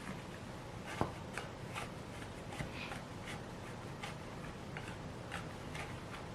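Hands working bread dough on a work surface: soft, irregular rubbing and tapping, with one sharper knock about a second in.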